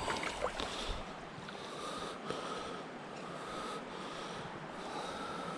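Steady rushing of a mountain stream's flowing water, with a few faint scuffs in the first second.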